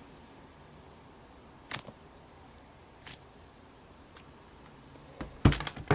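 Quiet room with two short clicks, then a louder cluster of knocks and clatter near the end: handling noise from an unboxing.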